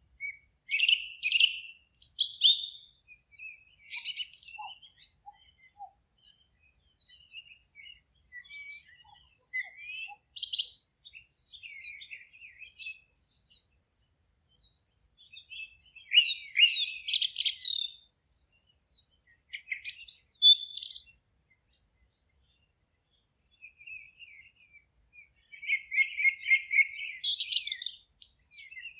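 Songbirds singing in a forest: phrases of high chirps and trills come every few seconds, with short quiet gaps between them.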